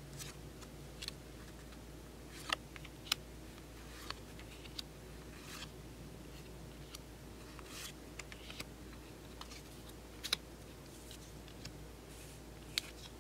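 Pokémon trading cards handled between the fingers: soft rustling of card stock broken by scattered sharp clicks and snaps of card edges, a few of them louder.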